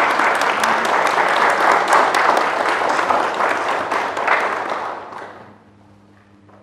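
Congregation applauding in a church, dense clapping that dies away about five seconds in, greeting the newly pronounced husband and wife.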